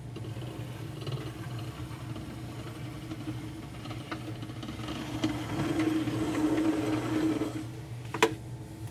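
Hornby OO gauge Class K1 2-6-0 model steam locomotive running slowly along the track: a steady motor whir with light ticks from the wheels, growing louder about five seconds in as the model passes close by. A single sharp click comes near the end.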